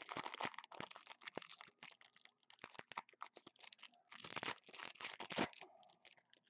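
Foil trading-card pack wrapper being torn open and crinkled by hand: a run of crackling rips and rustles, with a second loud burst of tearing about four seconds in.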